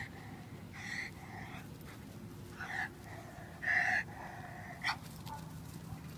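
A German Shepherd barking in short, high barks while straining on its leash, about five of them, the loudest about four seconds in.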